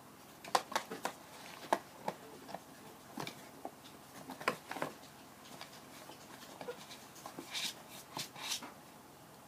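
Kitten at play: irregular light taps, clicks and scratches on a hard surface, with a few short rustling scrapes near the end.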